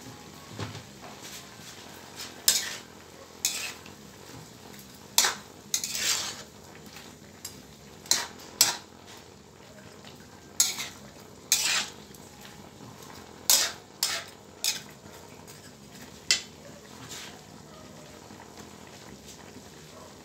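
Metal spatula scraping and clanking against a metal wok as mixed vegetables are stir-fried, in about a dozen irregular strokes that stop a few seconds before the end. Under the strokes the vegetables sizzle steadily in the hot oil.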